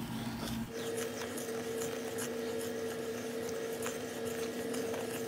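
Wooden spoon stirring flour into thick chocolate batter in a stainless steel saucepan: soft scrapes and light taps against the pan, over a steady low hum that starts about a second in.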